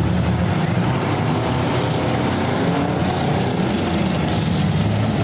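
Engines of several demolition derby cars running loud together, a dense steady drone with no pauses.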